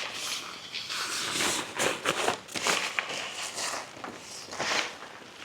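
Tent fabric rustling and swishing in irregular strokes as it is folded and handled, with a few light clicks.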